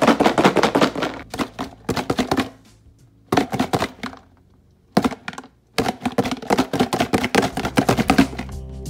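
Boiled quail eggs rattling and clacking against each other and the walls of a lidded plastic container as it is shaken hard, a fast clatter in bursts with a short pause near the middle. The shaking cracks the shells all over for quick peeling.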